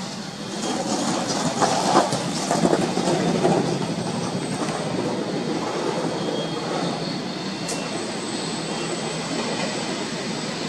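SBB double-deck passenger train rolling past at a station, wheels on the rails giving a steady running noise. A few sharp knocks come about two seconds in, during the loudest stretch, and the sound then settles to an even level.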